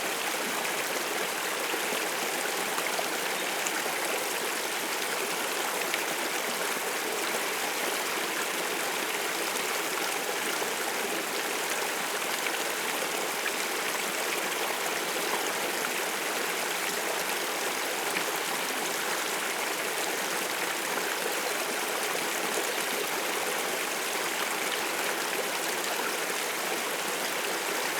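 Water of a stream flowing, a steady, even rush that holds unchanged throughout, with little in the low end.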